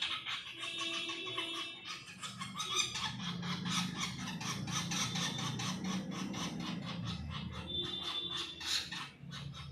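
Small birds chirping: a dense run of rapid, short chirps, over a low hum.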